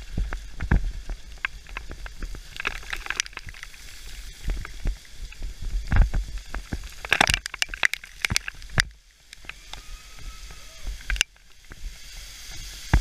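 Full-suspension mountain bike rattling and jolting over loose rocky gravel at speed, a dense run of irregular clatter and knocks over low wind rumble on the microphone.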